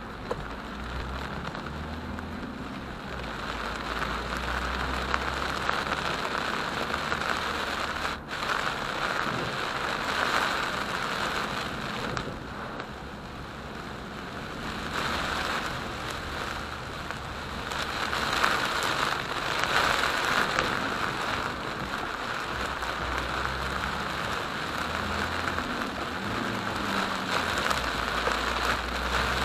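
Heavy rain pouring down, a dense steady hiss that swells and eases in waves.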